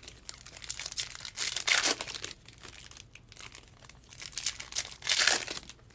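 Foil trading-card pack wrappers crinkling and tearing as packs are ripped open, in irregular short bursts, the loudest near the end.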